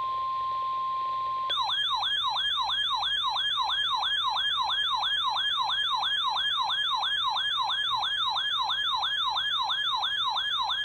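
Emergency alert tones: a steady weather-radio warning alarm tone near 1 kHz, cut off about a second and a half in by a loud electronic siren-like alert whose pitch sweeps upward about three times a second. The tones announce a severe thunderstorm warning.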